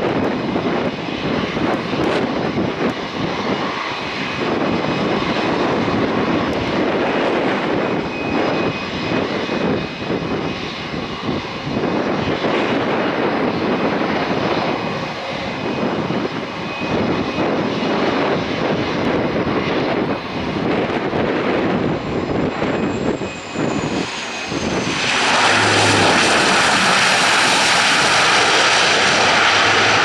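DHC-8-402Q Dash 8 turboprop airliner's PW150A engines and six-bladed propellers droning steadily on approach, with gusts of wind buffeting the microphone. About five seconds from the end the sound turns suddenly much louder and brighter as the aircraft rolls along the runway.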